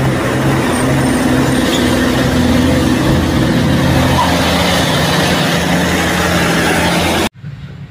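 Dump truck engine running steadily with a low, even note under a wash of mechanical noise. It starts suddenly and cuts off abruptly about seven seconds in.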